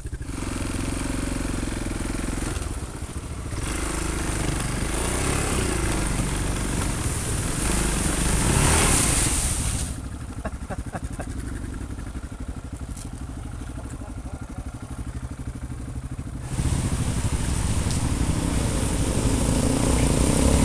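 Adventure motorcycles in a shallow creek crossing, the single-cylinder engine of a Yamaha Ténéré 660 pulling through the water. Partway through it drops to a quieter, low-revving stretch for several seconds, then a bike is heard again, louder, splashing through the creek near the end.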